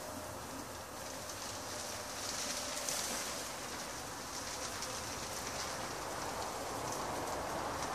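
Honeybees buzzing, faint under a steady hiss of background noise.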